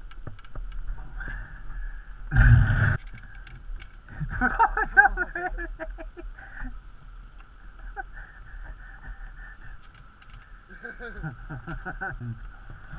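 A short, loud rustle or knock on the helmet-mounted camera about two and a half seconds in. Indistinct voices are heard twice, over a steady background hiss.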